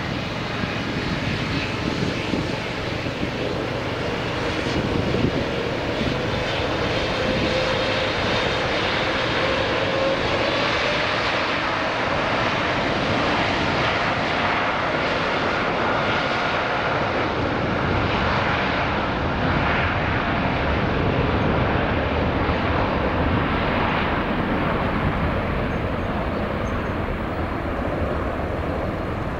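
Jet airliner taking off: loud, steady jet engine noise with a faint whine that rises a little in pitch in the first half.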